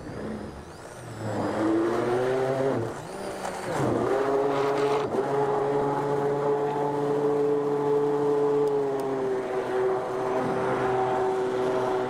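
Stainless steel immersion (stick) blender running in a jug of gelato base and powder, its motor whine rising as it spins up. The pitch dips briefly about three seconds in, climbs back, then holds steady.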